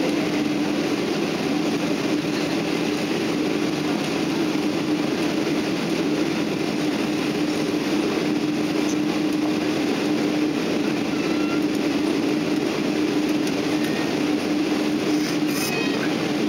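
Steady airliner cabin noise during taxi: the jet engines at low power and the air-conditioning, with a constant low hum. A short click comes near the end.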